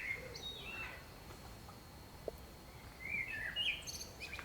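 Songbirds chirping quietly outdoors in short gliding calls, a few near the start and a cluster of chirps about three seconds in.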